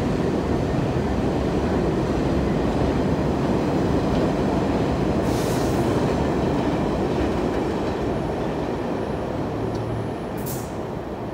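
R46 subway train standing at the platform, its equipment giving a steady, loud rumble. Two short bursts of air hiss come about five seconds in and again near the end, while the doors close.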